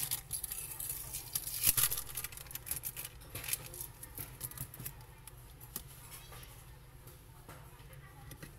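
Crackling and clicking of an OPPO A53's battery and its plastic adhesive film as it is peeled up and lifted out by hand, densest in the first few seconds, then thinning to light handling ticks.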